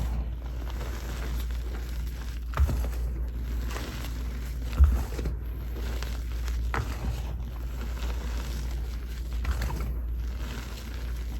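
Gym chalk being crushed, a continuous crunching and crackling with two sharper snaps about two and a half and five seconds in.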